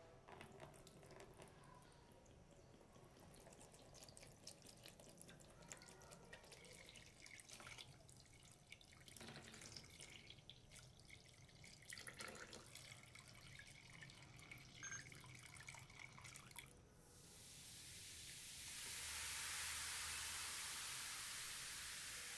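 Liquid poured from a bottle into a plastic tub over a rusty anvil, splashing and dripping irregularly. About seventeen seconds in, a louder steady fizzing hiss sets in as the chemical bath foams up.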